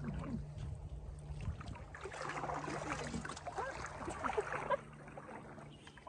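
Water splashing and trickling as netted bass fingerlings are tipped into the lake, over a steady low motor hum. The splashing is busiest in the middle, and the hum cuts off near the end, leaving quieter water sounds.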